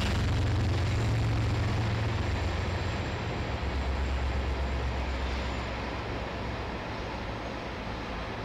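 Freight train rolling past: the low drone of the diesel locomotives fades as they pull away, over the steady rumble of covered hopper cars rolling by.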